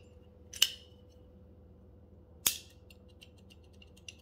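TWOSUN TS210 titanium-handled button-lock folding knife being snapped open and shut: two sharp metallic clicks, about half a second in and about two and a half seconds in, the second followed by a run of faint small ticks.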